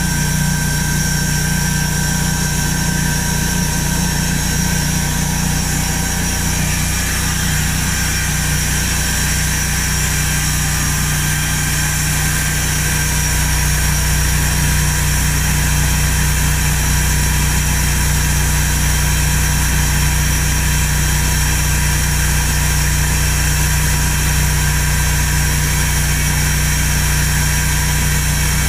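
Large band sawmill running steadily, its motor humming with a constant high whine over it, getting a little louder about halfway through as the saw head travels along the rails.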